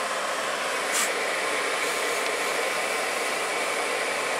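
Electric radiator cooling fan of a VAZ 2110 running steadily, a whooshing hum, with one light click about a second in.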